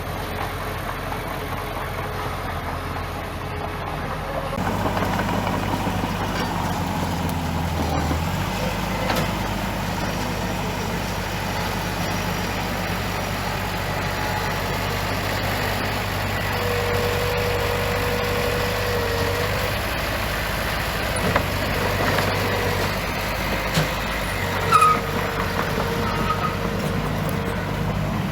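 Bulldozer diesel engine running steadily while working sand; its note steps up and gets louder about four and a half seconds in. A few brief squeals sound later, around two-thirds of the way through and near the end.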